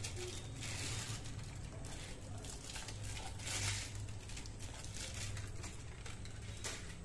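Aluminium foil crinkling as it is peeled off a tub of frozen ice cream, in several irregular rustles, the loudest about three and a half seconds in, over a low steady hum.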